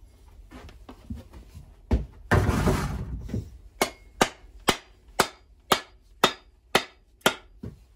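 Wooden axe handle slammed down again and again to drive the axe head onto it while the axe is being hung: eight sharp knocks, about two a second. Before them come a thud and a short scraping rush.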